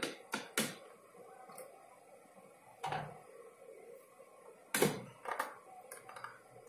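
Plastic jar of a Bolde Super Processor food processor being set on and twisted into place on its motor base: a few hard plastic knocks and clunks, a pair at the start, one about three seconds in and a louder pair around five seconds in.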